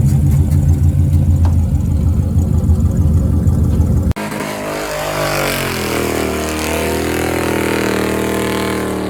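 Burnout car's engine running loud and steady, then, after an abrupt change about four seconds in, revving with the pitch dropping and then climbing again.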